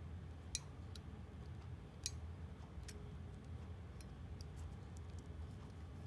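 Faint, irregular small clicks of a thin metal tool prying at the brass contact plate of an opened ME-8111 limit switch, bending the plate so the normally closed contact touches. Two sharper clicks come about half a second and two seconds in, over a low hum.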